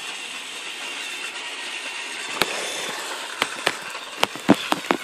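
Small electric motor of a battery-powered toy Thomas engine whirring steadily as it runs along the track, with a series of sharp clicks and knocks in the second half.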